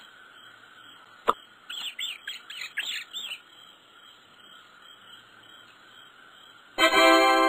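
Cartoon game sound effects over a faint steady background: a single click, then a quick run of high chirps and squeaks. Near the end comes a loud, steady, buzzy tone with many overtones lasting about a second.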